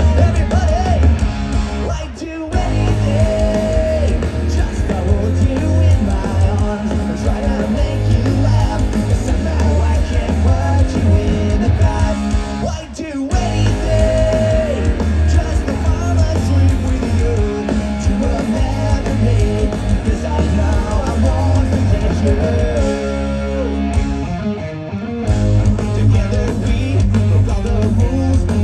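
Pop-punk band playing live: electric guitars, bass and drums with singing. The music drops out for an instant twice, about two seconds in and again near the middle.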